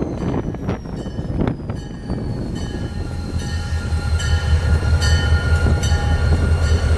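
A train slowing and coming to a stop at a station platform. Its wheels click over rail joints and a whine falls in pitch as it slows, then it settles into a steady low engine hum with high steady tones.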